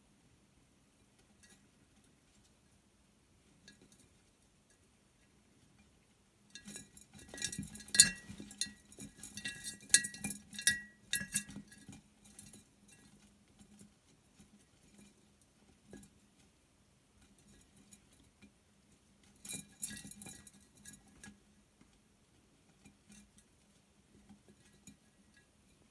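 Two mice scuffling inside a glass jar, their claws and bodies clicking and tapping against the glass in quick flurries: a long one about a quarter of the way in and a shorter one about three-quarters through, with scattered faint ticks between.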